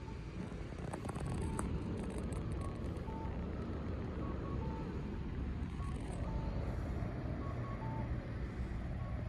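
A vehicle engine rumbles low and steady under short electronic beeps at two alternating pitches, repeating about once a second.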